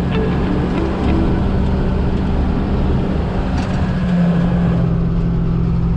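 Combine harvester's diesel engine running steadily under load, a constant low hum.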